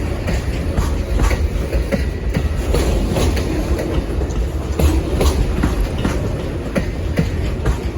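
Amtrak Auto Train cars rolling past close by, wheels clicking irregularly over rail joints above a steady low rumble.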